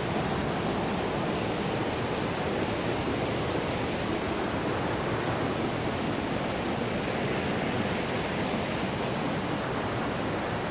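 Rushing water: a steady, even rush with no breaks.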